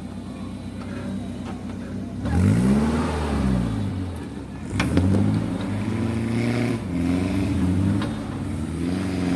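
Off-road 4x4's engine revving in several bursts, its pitch climbing and falling back each time, with a sharp knock about five seconds in.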